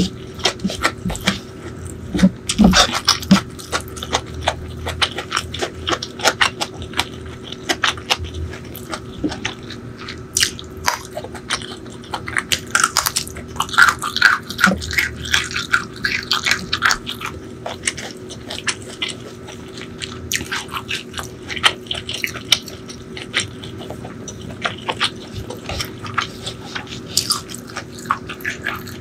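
Close-miked eating sounds: wet chewing and lip smacks from a mouthful of rice and spicy chicken liver and gizzard curry, with fingers squishing through curry-soaked rice. Many small irregular clicks and smacks throughout.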